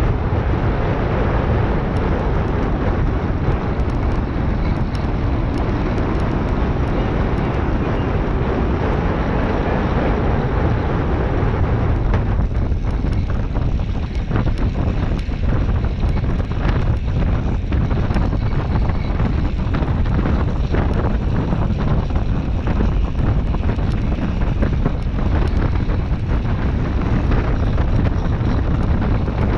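Wind buffeting the microphone of a handlebar-mounted camera on a track bicycle riding fast around a wooden velodrome: a loud, steady rumble of rushing air.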